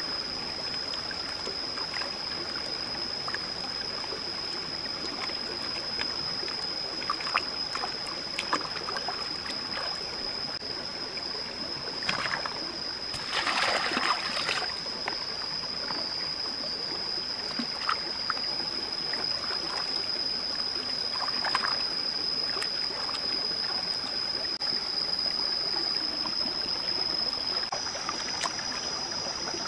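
Shallow stream running over rocks, with small splashes and wet rubbing as yams are scrubbed by hand in the water. About halfway through comes a louder rush of splashing as a woven bamboo basket is dipped and drained in the stream. A steady high-pitched tone sounds throughout.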